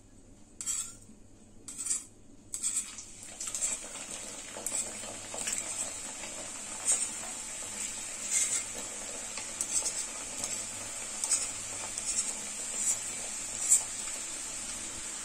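Raw nimki dough pieces being pushed off a board with a knife into hot oil in a kadai. The oil starts sizzling about three seconds in and keeps up a steady frying sizzle, with the knife clicking and scraping at regular short intervals as it pushes more pieces in.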